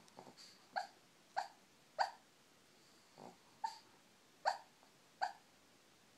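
Shih Tzu making short high squeaking whimpers in her sleep, about six of them at irregular spacing, with soft breaths between; the owner takes them for dreaming.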